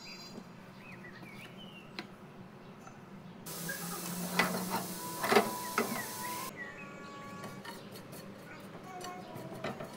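Chopped greens sizzling in oil in a nonstick frying pan, with a spatula scraping and knocking against the pan a few times. The sizzle starts abruptly about a third of the way in and cuts off abruptly about two-thirds through.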